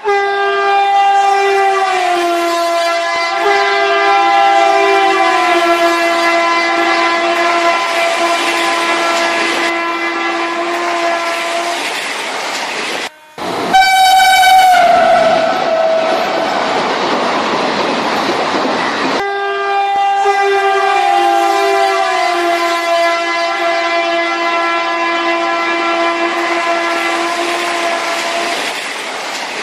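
Train horn sounding long two-note blasts with brief downward dips in pitch, over rumbling train noise. After a short gap a shorter blast glides down in pitch, and then the same sequence of long blasts repeats.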